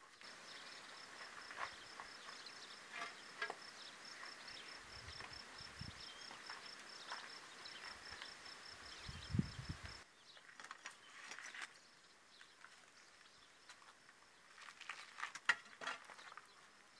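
Scattered clicks, clinks and knocks of old clay roof tiles being handled and stepped among on the roof battens, with a low thump or two. Under them an insect keeps up a high chirp pulsing about four times a second.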